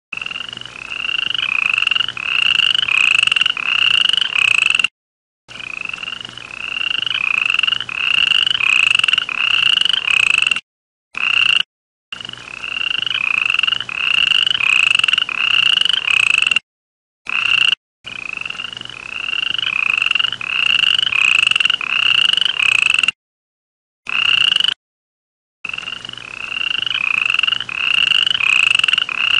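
A frog calling: a steady string of short, slightly rising notes, about two a second, in runs of several seconds broken off abruptly by brief silences.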